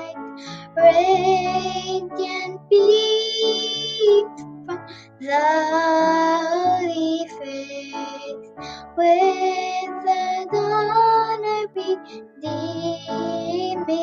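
A young girl singing solo over instrumental accompaniment, in phrases of long held notes separated by short pauses.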